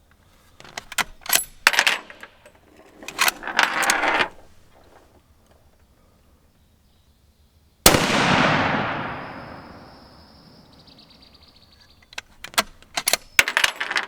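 Metallic clicking and clatter, then a single .308 rifle shot about eight seconds in whose report echoes and fades over about two seconds, followed by more metallic clicking near the end.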